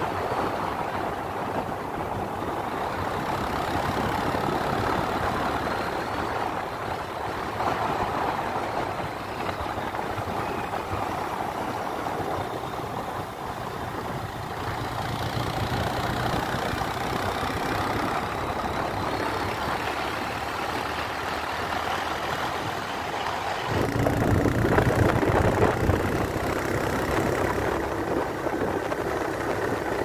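A vehicle engine running with road and wind noise while driving along a paved road. It gets louder for a few seconds about three-quarters of the way through.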